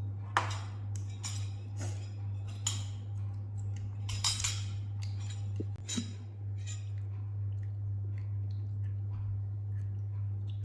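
A series of light clinks and knocks, a dozen or so in the first seven seconds and then stopping, over a steady low hum.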